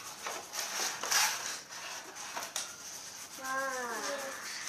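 Rubbing and scraping of cardboard and paper being handled, in a few noisy strokes early on. A short vocal sound with falling pitch comes near the end.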